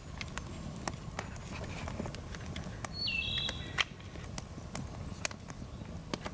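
Wood campfire of split logs crackling, with irregular sharp pops and snaps over a low steady rumble of the flames. A short high whistle sounds once about three seconds in.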